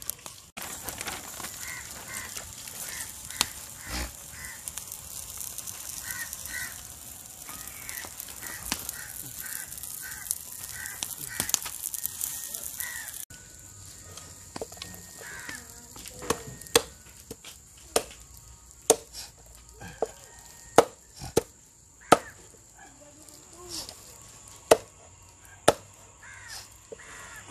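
A wood fire crackling under python pieces on a grill, with a bird calling over and over in the background. About halfway through it gives way to a heavy cleaver chopping roasted python meat on a plastic cutting board: sharp chops about once a second.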